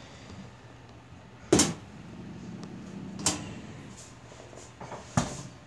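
Trapped calico mother cat spitting in a wire live trap: three sudden sharp bursts about a second and a half apart, the last with a low thump.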